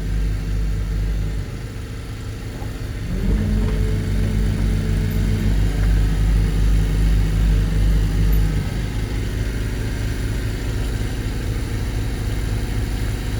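Barge-mounted vibratory hammer rig's engine running steadily. It steps up to a louder, higher drone under load from about three seconds in until about nine seconds in, working a piling upward, then settles back.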